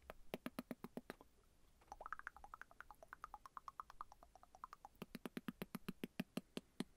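Torn plastic flag flapping in the wind, a quiet rapid run of sharp snaps at about seven a second, with a brief pause about a second in.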